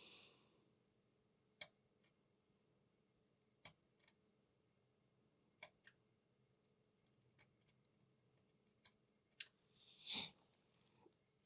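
A blade cutting the bridged jumper pad on an Amiga 500 circuit board in light strokes: faint, sharp scratchy clicks every second or two, with a short hiss just after ten seconds in.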